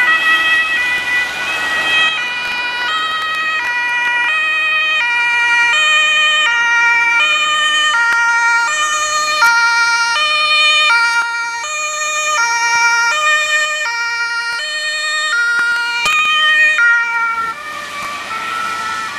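Electronic two-tone siren of a Red Cross emergency doctor's car, alternating steadily between a high and a low tone. Its pitch steps down as the car passes close, near the end.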